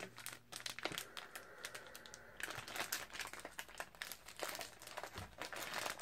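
Clear plastic wrapper of a packaged mochi rice cake crinkling as fingers work at it to get it open, a dense run of small crackles.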